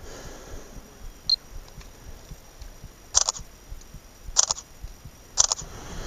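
Camera shutter firing three times, about a second apart, each a quick double click. A short high beep sounds about a second in, before the first shot.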